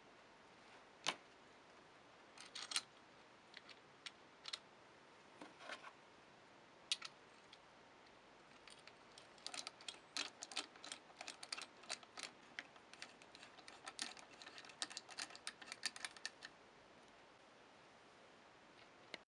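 Small metal clicks and ticks as screws are set into an AK-47 receiver and turned with a hex key to fasten a VLTOR stock adapter. A few scattered clicks come first, then a quick run of light clicking from about nine seconds in to past sixteen.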